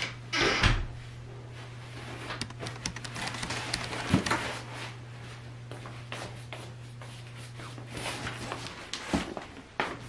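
Slippered footsteps scuffing across a tiled floor while a large cardboard box is carried, with light knocks and rustles, a heavier thump just after the start and more thumps near the end. A steady low hum underneath stops shortly before the end.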